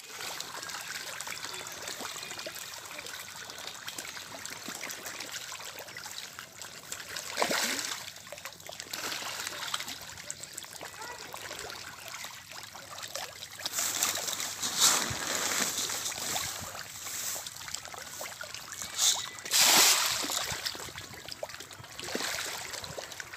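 A crowd of fish thrashing at the water surface in a feeding frenzy: steady splashing and trickling, with a louder splash about a third of the way in and several more splashes in the second half.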